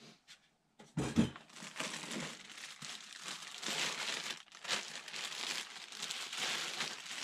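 Clear plastic wrapping bag crinkling and rustling as it is handled and pulled off a foam RC model part, after a short knock about a second in.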